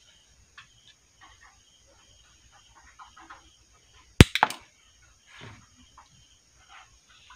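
Quiet handling of a copper wire joint at a terminal before soldering: faint scattered small clicks, with one sharp click followed by a couple of smaller ones about four seconds in.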